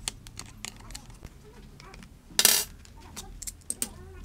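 Light clicks and clinks of plastic helmet parts and snaps as a full-face motorcycle helmet's liner and pads are pulled out by hand, with one short, louder rustle a little past halfway.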